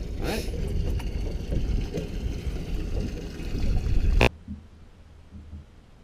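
Water lapping and gurgling against a small boat's hull under a low wind rumble on the microphone. About four seconds in it cuts off sharply to a much quieter low hum with faint soft thumps.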